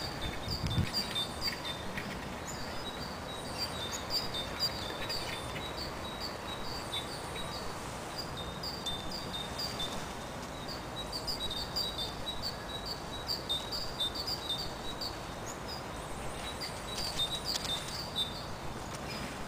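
A small bird chirping over and over, a short high note about two to three times a second, over steady outdoor background noise with a thin high whine beneath.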